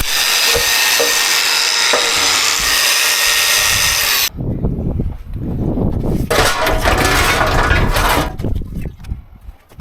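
A power tool cutting through a metal sign. It runs loud and steady, stops abruptly about four seconds in, and is followed by a rougher, uneven stretch of cutting and breaking noise.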